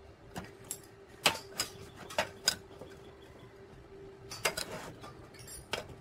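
Short square steel tubes clacking against each other and against a steel workbench as they are slid and shifted by hand: a series of sharp knocks in small clusters, over a faint steady hum.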